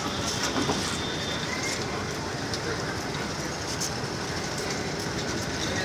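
Inter City passenger train carriages rolling past close by: a steady rumble of steel wheels on the rails with a few faint clicks.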